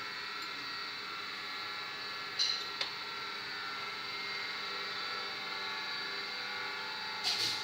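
A few light metallic knocks and clinks, twice about two and a half seconds in and again near the end, as the camshaft is handled and lifted out of its bearing journals in a Toyota Prado 4.0-litre cylinder head, over a steady background hum.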